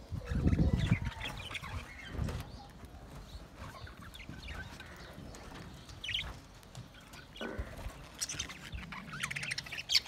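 Budgerigars chirping in short, scattered calls, busier near the end. A low rumbling thump in the first second is the loudest sound.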